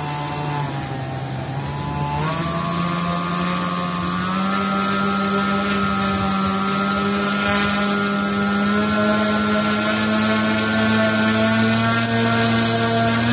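Small brushless electric motor of an RC model airplane running with no propeller fitted, a steady whine with many overtones. Its pitch steps up about two seconds in and again about four seconds in, and it grows slightly louder.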